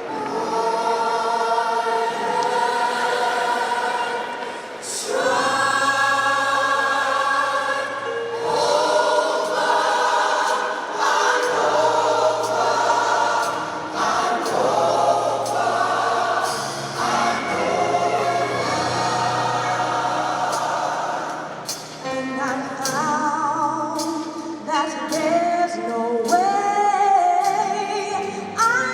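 A gospel choir singing in harmony over a live band, with bass coming in about five seconds in and sharper drum hits near the end.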